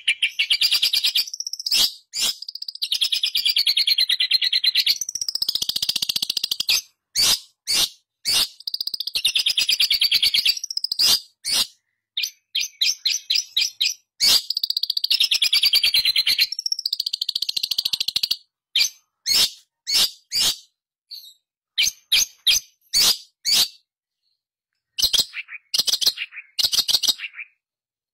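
Long-tailed shrike singing in long, rapid chattering phrases that waver up and down in pitch. In the last ten seconds these break up into shorter separate notes with pauses between.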